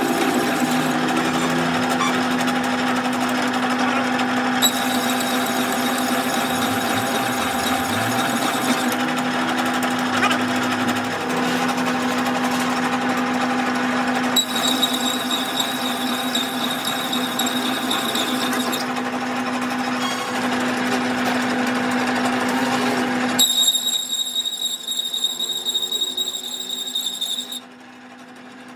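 Metal lathe running with a steady hum while a single-point tool cuts an internal thread in the bore of a heavy truck wheel hub. A high, steady whine joins in for several seconds at a time, three times, and the sound drops to a quieter level near the end.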